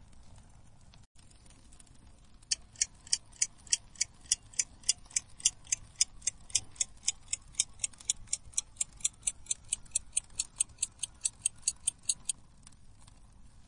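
Clock ticking steadily with sharp, high ticks, about three a second. It starts a couple of seconds in and stops about a second before the end.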